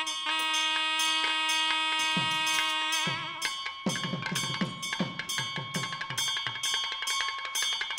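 Ritual music: a long held note until about three seconds in, then a steady drum beat with regular cymbal strokes.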